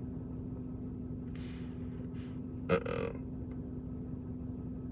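Steady low hum inside a car, with a person's brief throat sound, burp-like, about three seconds in and a couple of soft rustles before it.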